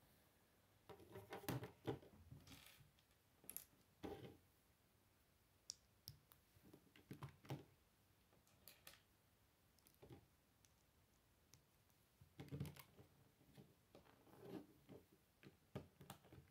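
Lego bricks being handled and pressed together: irregular small plastic clicks and rustles in short clusters, with the model set down on the wooden table.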